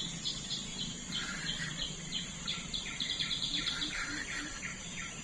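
Wildlife chirping in short repeated calls, about three a second, over a low steady hum.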